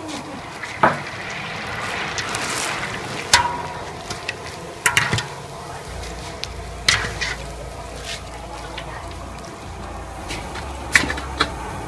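Noodles frying in a large wok of hot oil, a steady sizzle, stirred with a wire-mesh spider strainer that scrapes and knocks sharply against the metal wok several times.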